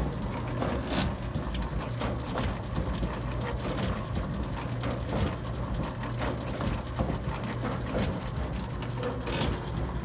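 Antique copper rocker-tub washing machine running, the tub rocking back and forth with a steady mechanical clatter of irregular clicks and knocks over a low hum.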